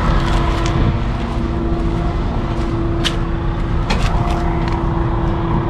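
A steady low machine hum with a held tone, with a few sharp clicks about three and four seconds in.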